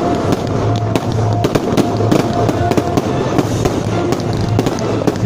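Fireworks going off in rapid succession: aerial shells bursting, with many overlapping bangs and crackles.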